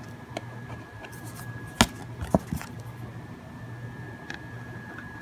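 Pen being handled on a tabletop: light ticks and two sharp clicks about two seconds in, over a steady low hum.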